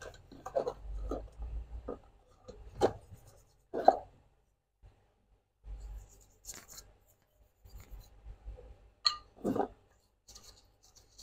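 A small brush scrubbing an aluminium motorcycle footrest bracket in a tub of soapy wash water, with wet splashes and a few louder sharp knocks or plops, the loudest about 3, 4 and 9 seconds in.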